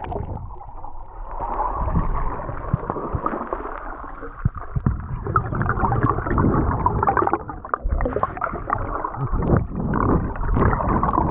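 Muffled underwater gurgling and bubbling with scattered knocks, heard through a GoPro's waterproof housing while the camera is under the surface.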